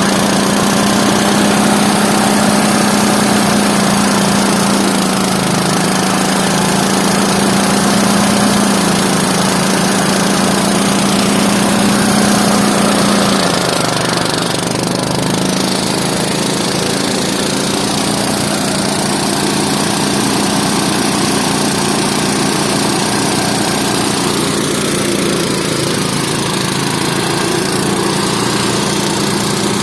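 Engine of rice harvesting machinery running steadily under load, dropping slightly in pitch and loudness about halfway through.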